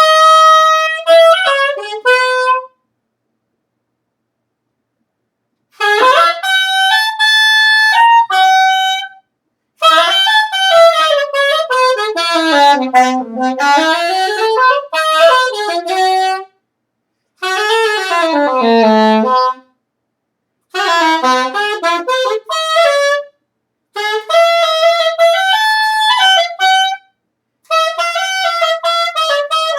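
A solo wind instrument played in phrases of a few seconds with short breaks between them, the notes swooping down and back up in pitch in the middle phrases.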